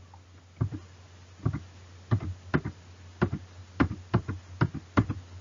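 Short, sharp clicks, about a dozen at uneven spacing, made while erasing lines on a psychrometric chart.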